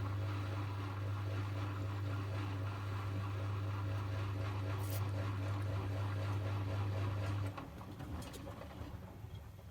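Miele washing machine running with a strong, steady low hum that cuts off suddenly about seven and a half seconds in, followed by a few faint clicks.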